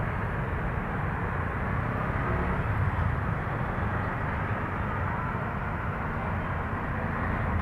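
Steady street background noise: a continuous low rumble with no distinct events.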